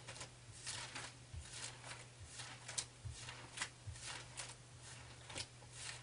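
Thin Bible pages rustling as they are turned one after another: a run of short, crisp paper swishes at an uneven pace, with a faint steady low hum underneath.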